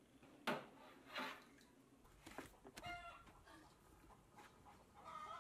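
Two sharp knocks of a spoon inside the metal drum of a washing machine used as a butter churn, then hens clucking several times.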